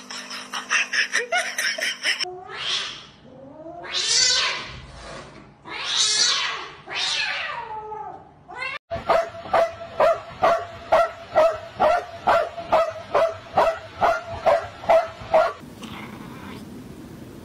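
Cat caterwauling: about four long yowls that rise and fall in pitch, followed by a fast, even run of short repeated cries, about two a second.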